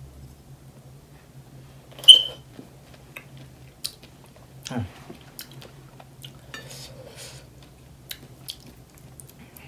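A single sharp clink of a china bowl about two seconds in, ringing briefly, followed by faint small clicks and chewing of a strawberry.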